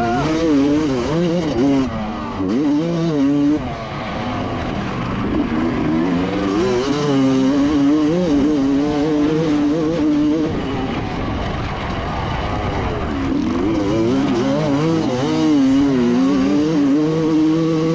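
Honda CR 250 two-stroke motocross engine revving hard under racing load, its pitch rising and falling over and over as the throttle opens and closes.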